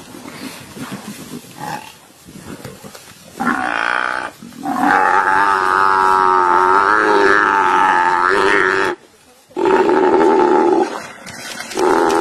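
African buffalo bellowing in distress while lions bring it down. After a few quieter seconds come long, drawn-out calls: a short one, then one lasting about four seconds, then two shorter ones with brief gaps between.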